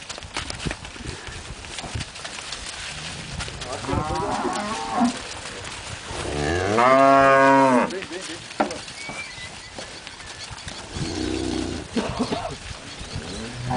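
Angus and Red Angus cattle mooing: several moos, the loudest and longest about halfway through, lasting about a second and a half, rising and then falling in pitch. Scattered short knocks run in between.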